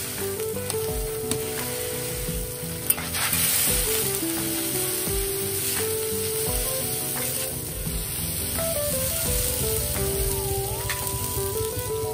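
Roti frying on a hot round flat griddle, with a steady sizzle and a few sharp spatula taps, the loudest about three seconds in. Background music with a melody plays throughout.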